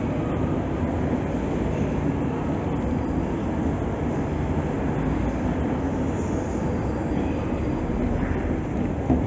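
Steady low rumble of a moving escalator carrying a rider down, with a single short knock near the end.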